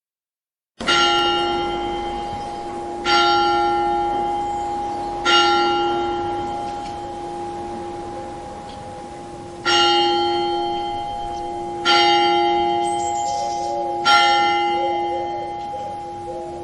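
A church bell tolling six strokes in two groups of three, each stroke about two seconds apart and left to ring out, with a longer pause between the groups. It begins about a second in, after silence.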